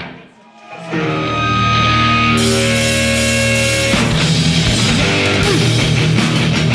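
Live heavy hardcore/metal band, loud. The music drops out for about a second, then electric guitar and bass hold ringing notes. Cymbals come in partway through, and about four seconds in the full band with drums kicks in.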